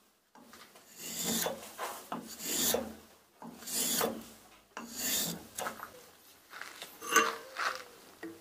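Hand rasp scraping along a wooden hammer handle in repeated push strokes, shaping the wood: about six rough strokes, roughly one every second and a bit, the last ones shorter and sharper.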